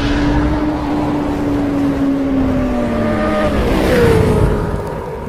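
Motorcycle engine sound effect: a steady engine note that sinks slowly lower, then a louder rush about four seconds in, after which a higher, steady engine note settles in.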